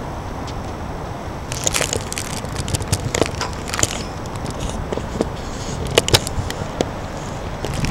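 Steady low rumble of wind on the microphone, with irregular sharp crackling clicks starting about a second and a half in.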